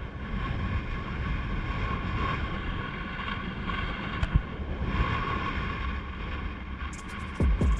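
Wind buffeting the microphone as a steady low rumble, with a short low thump about four seconds in and a louder pair of thumps near the end.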